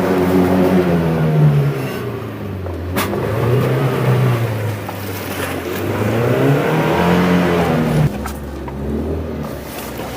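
SUV engine revving up and down under load in low-range four-wheel drive as it charges up a slope. The pitch falls about two seconds in, climbs again, then drops off sharply about eight seconds in, with a couple of brief knocks along the way.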